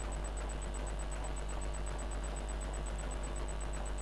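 Steady low electrical hum from the power-supply load-test setup, with a faint high-pitched tone pulsing evenly over it.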